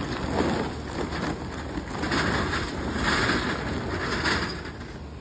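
Charcoal briquettes pouring out of a paper bag and clattering onto the steel mesh charcoal grate of a caja china roasting box, in several surges as the bag is tipped.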